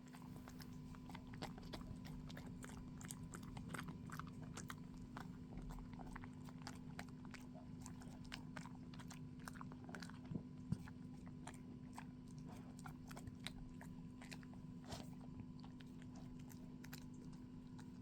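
Scottish terrier chewing and crunching its food, with irregular crisp crunches several times a second over a faint steady hum.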